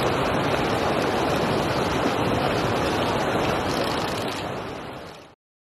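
Steady rush of flowing water, fading out and stopping about five seconds in.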